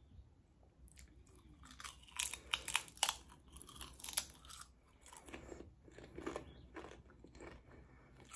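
A thin Lay's potato chip being bitten and chewed: a run of sharp, crisp crunches about two seconds in, then softer chewing that tails off.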